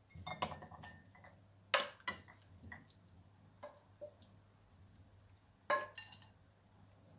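Wooden spatula scraping stir-fried chicken and cashew nuts out of a frying pan into a ceramic serving dish: a series of irregular scrapes and light knocks as the food slides and drops onto the plate.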